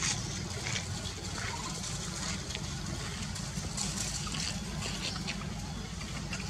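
Background noise: a steady low rumble with scattered short, faint high-pitched ticks and chirps.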